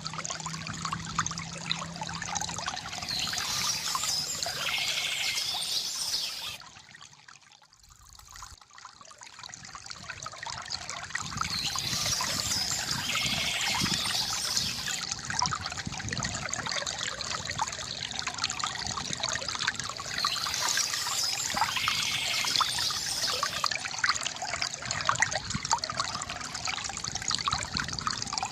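River water gurgling and trickling, with birds chirping softly over it; the same chirping pattern comes back about every eight seconds. The water fades almost out for a moment about seven seconds in, then returns.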